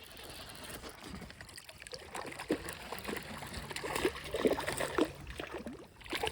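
Water splashing and trickling around a kayak in small, irregular splashes.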